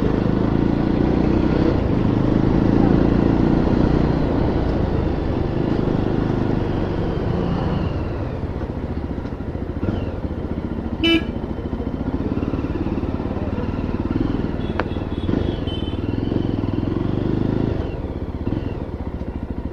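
Yezdi Roadster's 334 cc single-cylinder engine running at low speed in slow street traffic, with a short horn beep about halfway through.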